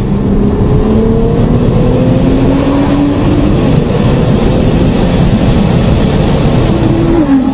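Car engine heard from inside the cabin, its note climbing as it accelerates, over steady road and wind noise. Near the end the engine's pitch drops sharply.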